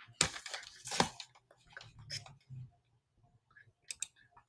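Computer mouse clicks with some handling rustle: a sharp click about a second in, then a pair of quick clicks near the end, closing the PowerPoint slide show.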